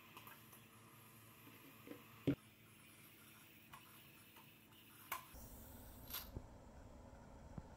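Quiet kitchen handling sounds: one sharp knock about two seconds in as a container is set down on a stone countertop. A few light clicks and a faint low rumble follow near the end.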